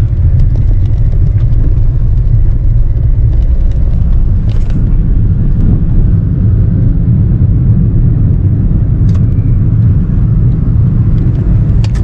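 Steady low rumble of road and engine noise inside the cabin of a moving Maruti Suzuki car, with a few faint ticks.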